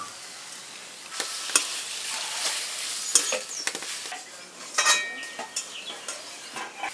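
A spatula stirring and scraping thick mashed taro leaves around a metal karai while they dry-fry, with a steady frying sizzle and irregular sharp scrapes and clicks of the spatula against the pan.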